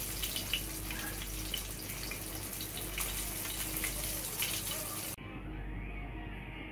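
Sinigang broth with sea bream bubbling in an open pan: a steady hiss dotted with small crackles and pops. About five seconds in it cuts off abruptly, giving way to a quieter, duller background.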